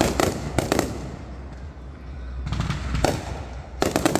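Fireworks going off in sharp cracks and bangs, in uneven clusters, with a quick run of crackling reports near the end.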